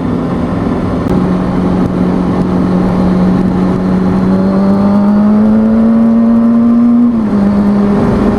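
2003 Kawasaki ZX-6R 636's inline-four engine running under way, its pitch slowly rising for about seven seconds, then dipping briefly as the revs drop and settling lower.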